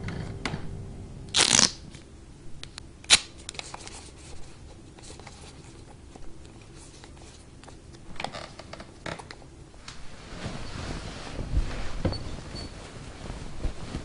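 Wall light switch clicked on and off by hand, sharp single clicks about three seconds in and again around eight to nine seconds, after a brief louder scuffing sound early on. Near the end, bedding rustles as someone settles under a duvet.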